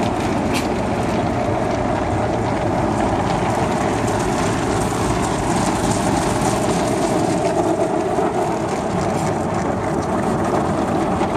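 Automatic car wash working over the car, heard from inside the cabin: water spray and soapy cloth wash strips sweeping across the windshield, windows and roof make a loud, steady rushing noise.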